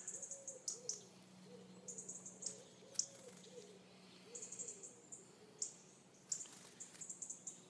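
Young great tit giving faint, thin, high-pitched calls in four short bursts, with a few sharp little taps as it pecks about in hair.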